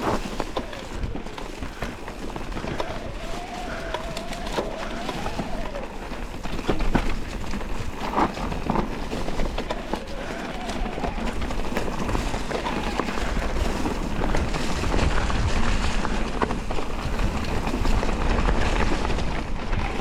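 Electric mountain bike ridden over a rough dirt trail: a constant rattle and clatter of tyres, chain and suspension over the ground, with a motor whine rising and falling in pitch. Wind rumbles on the microphone, getting louder in the second half.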